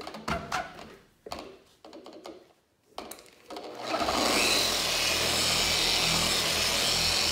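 A few knocks, then about four seconds in a Rupes long-throw dual-action polisher starts up and runs steadily, its orange exact-fit foam pad working car paint.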